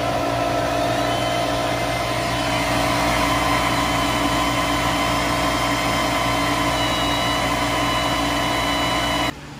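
Stock 6-inch squirrel-cage exhaust blower for a laser cutter, run without its box, going flat out: a loud, steady drone of rushing air with a motor hum and several fixed whining tones. It cuts off suddenly near the end.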